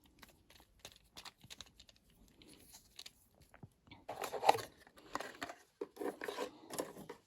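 Cosmetics packaging handled by hand: scattered small clicks and taps, then louder crinkling and rustling from about four seconds in.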